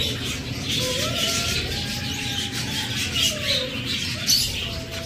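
Budgerigars chattering and chirping, a dense run of quick twittering notes, over a steady low rumble. A faint single tone slowly rises and falls beneath them.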